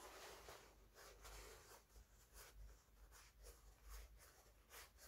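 Near silence with faint, irregular little scratches and clicks of handling: the original eyelet being fitted by hand into the newly threaded hole of a cello bow's frog.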